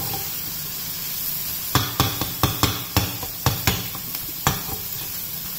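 Paneer bhurji sizzling in a frying pan with a steady hiss, and from about two seconds in a spoon stirring it and knocking against the pan in a quick run of about nine sharp taps.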